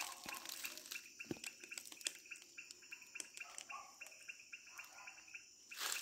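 Faint chirping of green parakeets from inside a hollow in a tree trunk, a few short high calls repeated.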